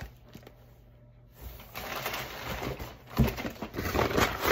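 Food packaging rustling and crinkling as groceries are handled and taken from a delivery box, starting about a second and a half in, with a knock about three seconds in.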